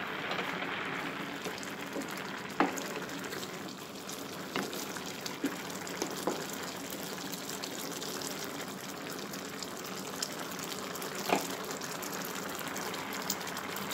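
Black beans boiling hard in a pan, a steady bubbling as the pot cooks down to thicken. A few sharp knocks of a wooden spoon against the pan as it is stirred, the loudest about two and a half seconds in and again near eleven seconds.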